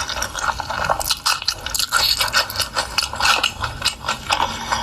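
Close-miked mukbang eating sounds: wet chewing and smacking mouth noises, with many short clicks.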